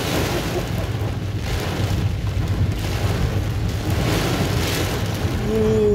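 Heavy rain drumming on a car's roof and windshield, heard from inside the cabin over a steady low road rumble. A louder swish from the windshield wipers comes about every second and a half, and a short tone sounds near the end.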